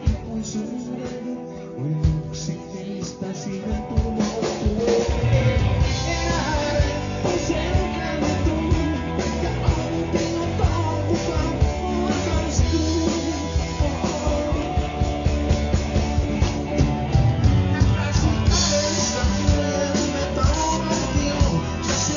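Live rock band playing through a PA: electric guitars, bass, drum kit and a singer. The sound is thinner for the first few seconds, then the full band with a steady drum beat comes in about four seconds in.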